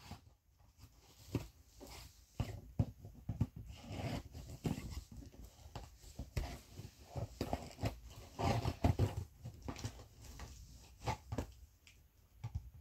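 Scissors cutting and tearing at the packaging of a cardboard box, with irregular scrapes, clicks and rustles as the box is worked open.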